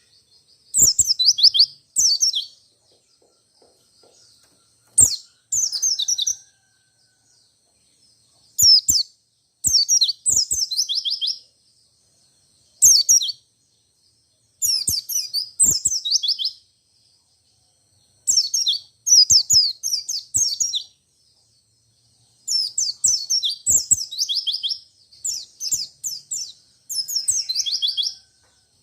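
White-eye (pleci) singing in short bursts of rapid, high, downward-sliding chirps, repeated every second or two with brief pauses between phrases.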